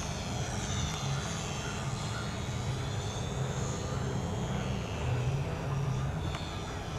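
Electric motor and propeller of a two-channel RC airplane whining as it flies overhead, its high pitch drifting up and down as it passes, over a low steady hum.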